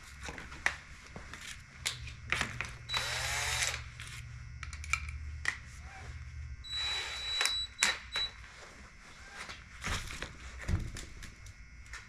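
A cordless drill is run in two short bursts amid clicks and clatter of tools being handled on a workbench.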